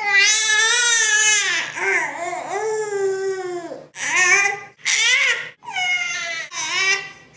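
A baby crying: one long cry with a wavering pitch lasting nearly four seconds, then four shorter cries in quick succession.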